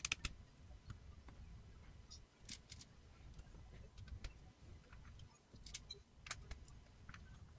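Faint, irregular clicks and ticks of a small Phillips screwdriver working the heatsink screws of a laptop, with small metal parts tapping now and then.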